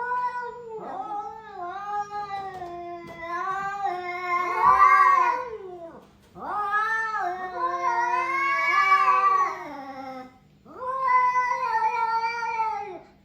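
Cat yowling in three long drawn-out calls, each wavering in pitch.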